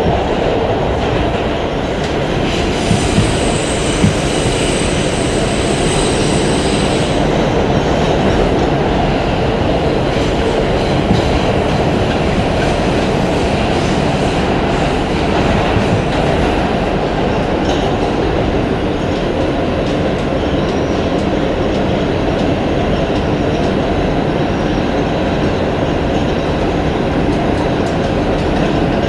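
R142 subway train running at speed through the tunnel, heard from inside the car: a steady, loud rumble of wheels and track. A high squeal rises over it for a few seconds near the start.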